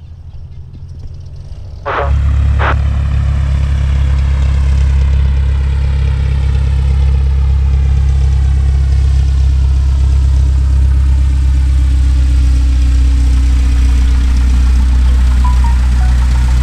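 SIAT 223 Flamingo's four-cylinder Lycoming piston engine and propeller running at low taxi power, a steady low drone. It is quieter at first, then about two seconds in, after two sharp clicks, it becomes much louder and stays steady.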